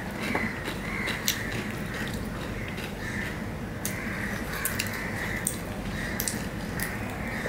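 Close-up eating sounds of a person eating by hand: wet chewing and finger-sucking with scattered sharp mouth clicks, over a steady low hum.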